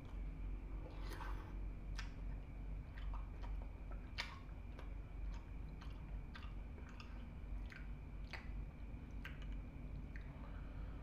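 A man eating soup from a ceramic bowl with a spoon: chewing close to the microphone, with sharp clicks every second or so.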